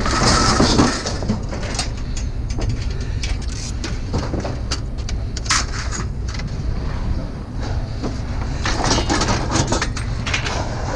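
Scattered clanks and knocks of scrap metal being handled and pried apart by hand, most frequent near the start and again in the last few seconds, over a steady low rumble.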